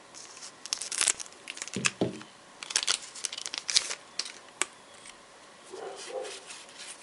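Foil Yu-Gi-Oh booster pack being torn open, its wrapper crinkling in irregular crackly bursts that stop near the end.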